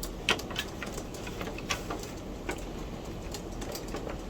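Scattered light clicks and taps of a computer case's front panel and parts being handled and fitted, over a low steady background hiss.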